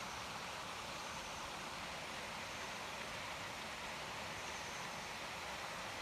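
Steady rush of a mountain stream running over rocks.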